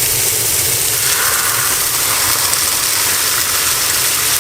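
Meatballs and poured-in tomatoes sizzling steadily in a very hot pan, with a steady low rumble underneath.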